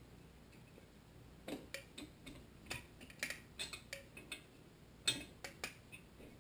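Ratchet wrench clicking in short, irregular runs as a cylinder head bolt on a Tecumseh HSK70 engine is tightened, the first pass toward 100 inch-pounds. The clicks start about a second and a half in, with the sharpest one a little after five seconds.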